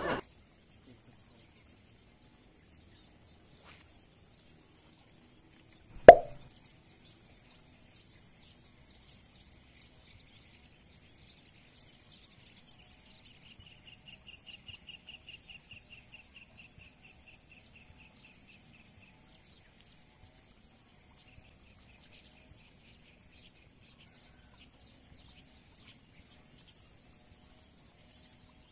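A single sharp splash about six seconds in, a fishing lure landing in the canal water on the cast. Around the middle a bird gives a rapid run of high chirps, about five a second, over a steady high hiss.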